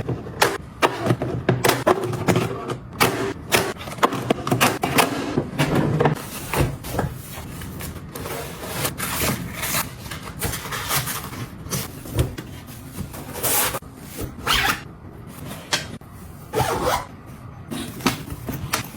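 Small objects being handled and set down: a busy, irregular run of clicks, taps, light knocks and scrapes, with stretches of rustling.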